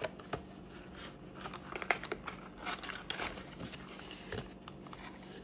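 Cardboard Crayola 96-count crayon box being handled and turned: a string of irregular clicks, taps and scraping rustles of the cardboard, busiest in the middle.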